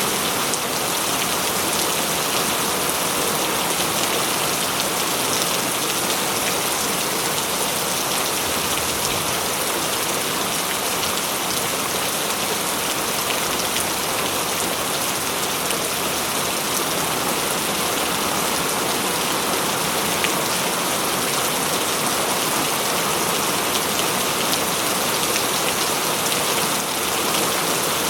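Steady rain falling on leaves and ground, an even hiss with scattered faint drop ticks.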